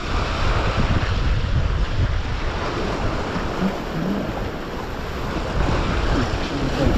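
Sea waves surging and foaming over rocks, with wind buffeting the microphone as a low rumble.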